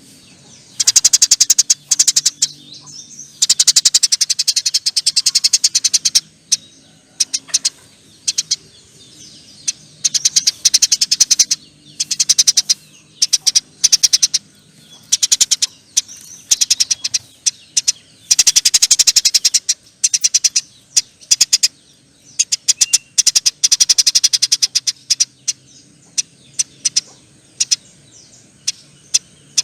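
Eurasian tree sparrow chattering in long, rapid runs of high, shrill chirps. The runs come again and again, each a second or two long, with short pauses between them.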